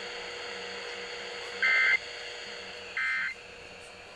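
EAS end-of-message code from a weather radio: two short bursts of warbling data tones about a second and a half apart, the first louder, over steady faint hiss. The bursts close out the Child Abduction Emergency alert.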